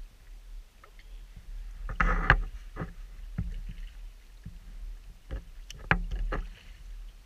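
Handling sounds of a Stanley vacuum bottle as its cup and stopper are taken off: scattered clicks and knocks, with a louder rustling scrape about two seconds in. A sharp knock about six seconds in, as a hand touches the camera.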